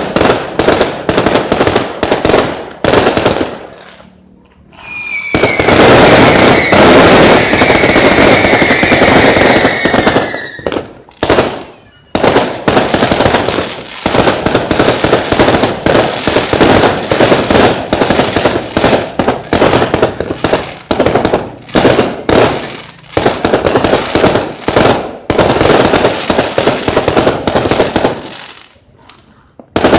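Fireworks barrage: dense rapid bangs and crackles many per second, with a brief lull about four seconds in and again near the end. From about five to ten seconds a continuous loud hiss with a high whistle slowly falling in pitch runs over the bangs.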